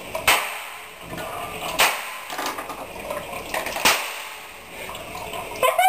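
Three sharp cracks about a second and a half to two seconds apart, each trailing off in a short rush of noise, with toilet water flushing and swirling in the bowl in the latter part.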